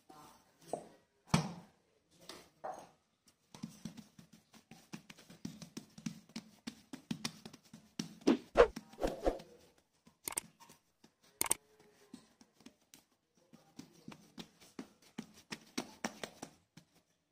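Hands handling and pressing risen bread dough flat on a silicone baking mat: soft, irregular pats and squashes, with a few sharper knocks now and then.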